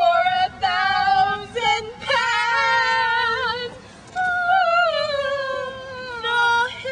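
A woman singing a slow, high melody with long held notes, one held with vibrato and a later one gliding slowly downward.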